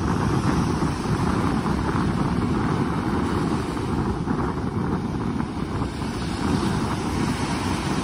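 Small waves breaking and washing up a sandy beach, with wind buffeting the microphone in a steady low rumble.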